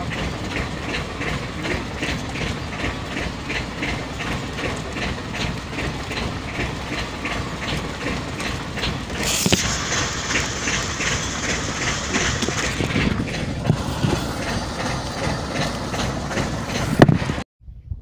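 A steady low hum of a small fishing boat's engine, with a regular mechanical ticking of about four ticks a second that fades after the middle. A hiss joins for a few seconds about halfway, and there is one sharp click near the end.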